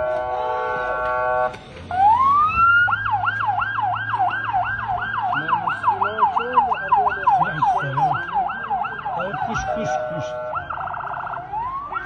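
Electronic emergency-vehicle siren, changing modes: a steady horn-like blast, a rising sweep into a fast yelp of about three rises a second, another short steady blast about ten seconds in, then a rapid warble before it sweeps up again.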